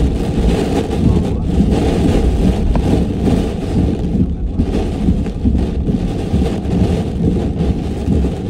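Hurricane wind and rain buffeting: a loud, low rushing noise that surges and eases in gusts without letting up.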